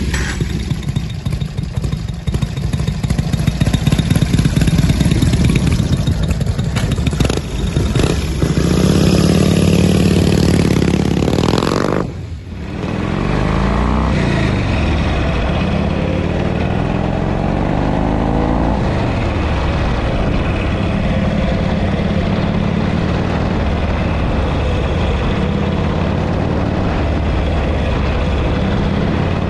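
Harley-Davidson V-twin motorcycle engine and exhaust running loud and revving up, its pitch climbing. It dips suddenly for a moment about twelve seconds in, then runs on steadily, the pitch rising and falling gently.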